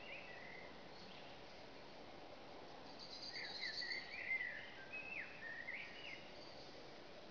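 Birds chirping over a faint, steady outdoor background hiss. A run of short rising and falling chirps starts about three seconds in and lasts until near the end.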